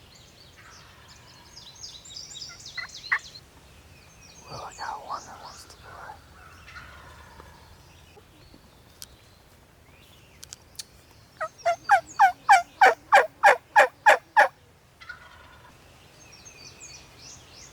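Wild turkey calling: a rattling gobble about five seconds in, then a loud run of about a dozen evenly spaced yelps, roughly four a second, near the twelve-second mark. Small songbirds chirp faintly around them.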